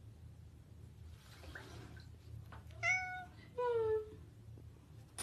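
Domestic cat meowing twice about three seconds in: a short meow, then a longer one that falls in pitch.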